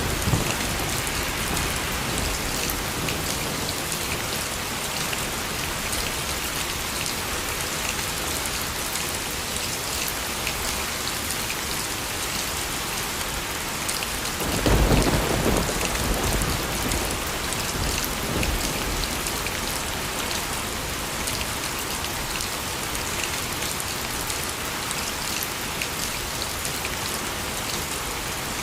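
Steady heavy rain falling, with a roll of thunder rumbling about halfway through and fading over a few seconds.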